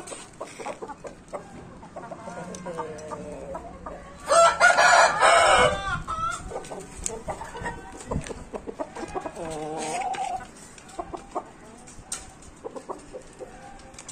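Gamefowl roosters calling: one loud crow about four seconds in, lasting a second and a half, with quieter clucking calls before and after it.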